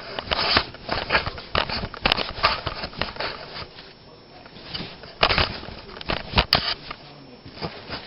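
Footsteps and the clatter of hand tools being moved about and handled while someone searches for an oil filter wrench: irregular clicks and knocks, with two louder metallic clanks about five and six and a half seconds in.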